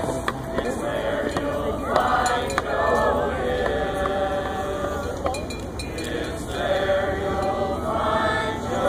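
A group of voices singing a slow, mournful song together, unaccompanied, with notes held long.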